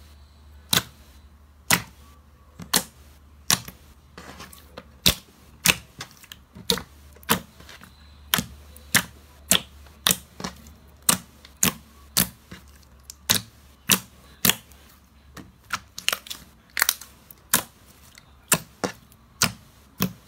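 Clear slime being pressed and folded by hand, its trapped air bubbles popping in a steady series of sharp cracks, roughly one or two a second.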